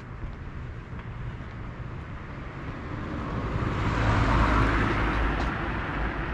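A car passes by, its engine and tyre noise swelling about four seconds in and fading as it drives on up the street.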